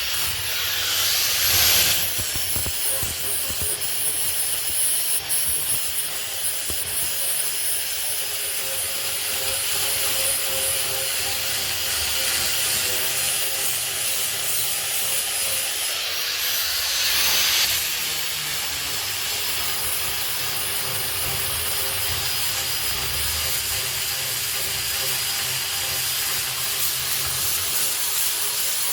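Angle grinder with a flap disc sanding an oak slab: a steady motor whine over the hiss of the abrasive on the wood. Twice it briefly swells louder with a sweep in pitch, about a second in and again past halfway.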